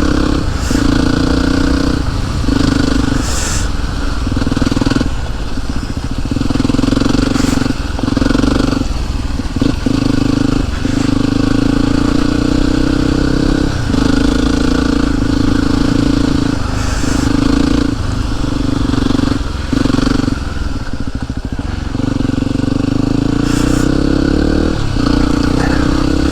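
Yamaha WR single-cylinder motorcycle engine running on the move, a steady drone that drops away briefly every second or two.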